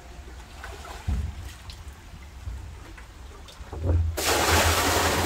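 Water being poured from a container into a barrel: a loud gush that starts about four seconds in and lasts about a second and a half. Before it there is only a faint low rumble and a single knock about a second in.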